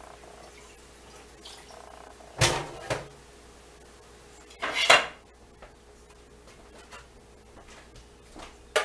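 Pots and pans clattering at a kitchen sink while grease is drained off browned ground beef: two knocks about two and a half seconds in, a louder clatter near five seconds, and a sharp clank at the end.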